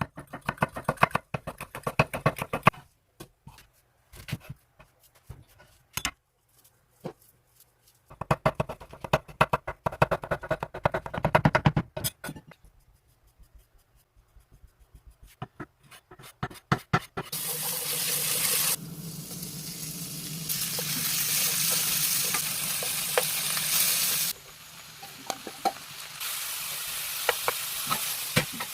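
Fast, rhythmic knife chopping on a cutting board in long runs, then lighter scattered taps. Past the middle, ingredients sizzle steadily in a hot pan as they are stir-fried, the sizzle dropping and picking up again a few times.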